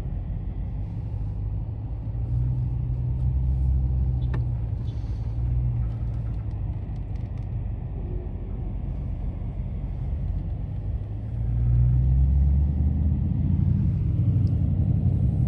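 Car engine running at low speed, heard from inside the cabin as the car creeps and turns while parking. The low drone swells louder with throttle twice, more strongly from about eleven seconds in.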